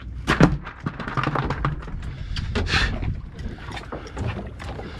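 A few knocks and clatters from the boat's ice cooler being handled, the sharpest about a third of a second in, over a low rumble of wind on the microphone.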